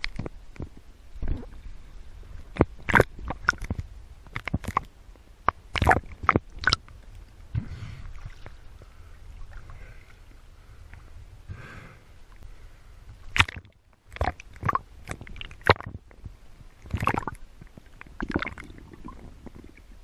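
Water sloshing and bubbling around a GoPro in its waterproof housing as a swimmer moves through shallow water: irregular sharp splashes and bubble pops over a low rumble.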